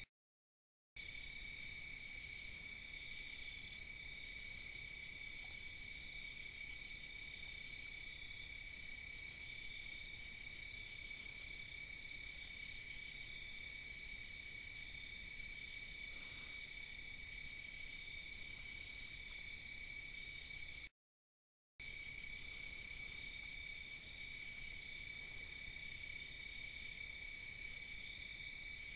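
Night insect chorus: crickets trilling steadily at several overlapping high pitches, with a faster pulsing chirp higher up. The sound cuts out completely twice for about a second, near the start and about two-thirds of the way through.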